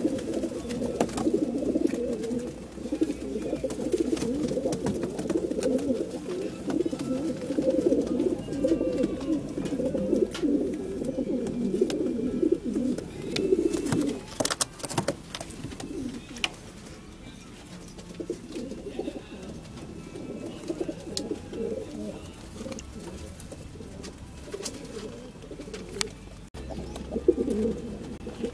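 Many racing pigeons cooing together in transport crates, a dense overlapping chorus of low coos. It eases off about two-thirds of the way through and swells again near the end. A few sharp clicks come about halfway.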